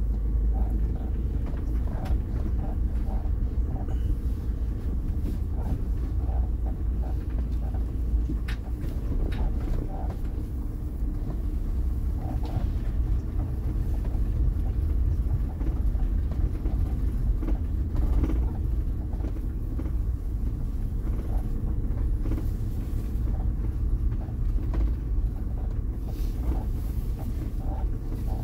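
Steady low engine and road rumble of a camper van rolling slowly, with faint small ticks now and then.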